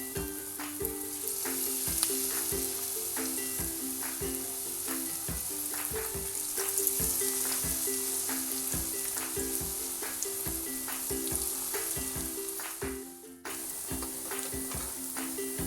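Onion fritters (ullivada) deep-frying in hot oil in a pan: a steady sizzle with many small crackles, which drops out briefly a bit before the end. A background music melody plays under it.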